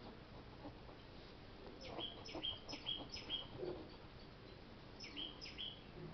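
Faint bird chirping: short repeated chirps, each a brief steady note paired with a quick downward sweep, in a burst about two seconds in and again about five seconds in.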